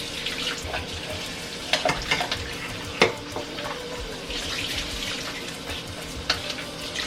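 Kitchen tap running into a sink while fish is washed by hand, with a few sharp knocks, the loudest about three seconds in.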